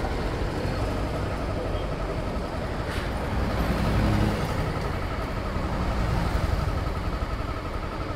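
Sport motorcycle running steadily at low road speed, its engine hum mixed with wind and road noise. About four seconds in, a low rumble swells as a car passes close alongside.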